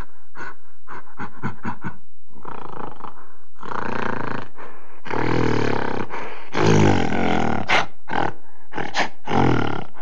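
Gorilla vocalizing: a quick run of short grunts, then longer, pitched calls from about four seconds in.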